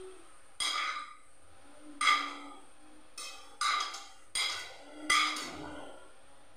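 Metal spoon clinking and scraping against a non-stick frying pan while stirring sliced onions: about six short ringing knocks spread irregularly, with pauses between.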